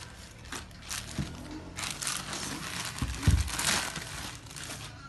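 Clear plastic bag crinkling and rustling as a sneaker wrapped in it is pulled out of its shoebox, with a dull thump a little past three seconds in, the loudest moment.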